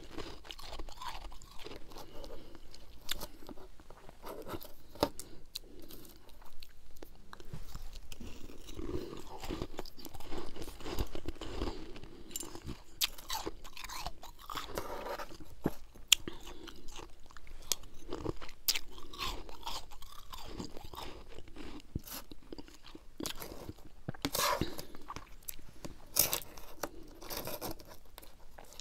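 Freezer frost being chewed close to a clip-on microphone: dense, irregular crunching and crackling, with a few louder crunches near the end.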